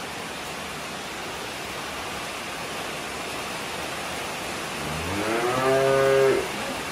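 Steady hiss of rain. About five seconds in, a calf gives one long moo, the loudest sound, rising at the start and then held for over a second.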